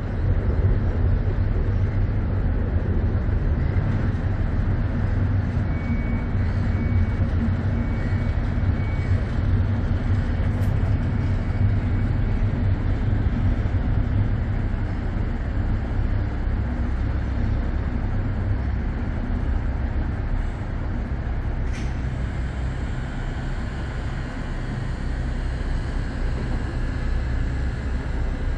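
Steady low rumble of engines and traffic across a city harbour, with a faint high whine coming and going and a single sharp click about two-thirds of the way through.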